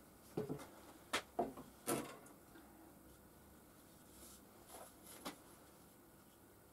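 A few light knocks and clatters of a plastic glue bottle and small wooden pieces being put down and handled on a workbench. The sharpest four come in the first two seconds, and two softer ones follow about five seconds in.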